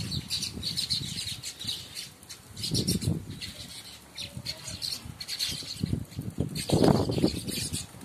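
A feeding flock of sparrows chirping continuously in many short, high notes, with some wing flutter. Two low rumbles come about three and seven seconds in, the second the loudest.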